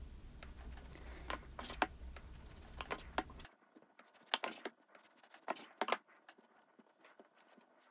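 Chef's knife slicing a nori-wrapped sushi roll on a wooden cutting board: a series of short, sharp cuts and taps as the blade goes through the seaweed and meets the board.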